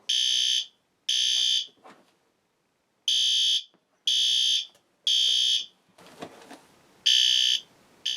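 System Sensor P2RL fire alarm horn strobe sounding its temporal-three evacuation pattern on the low volume setting. Half-second horn blasts come three at a time, a second apart, with a pause of about a second and a half between groups.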